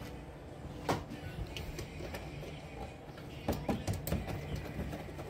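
Hands fitting a windshield wiper arm back onto its pivot at the plastic cowl: a sharp click about a second in, then a quick run of lighter clicks and knocks.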